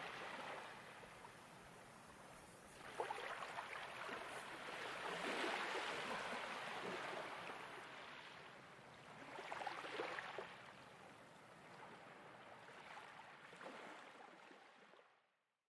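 Gentle ocean waves washing in, several soft swells a few seconds apart, fading out to silence near the end.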